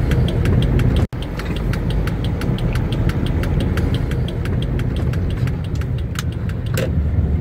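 Inside a car cabin: the engine runs at low speed with a steady low rumble, and a turn-signal relay ticks evenly at about three to four ticks a second as the car turns. The sound cuts out for an instant about a second in.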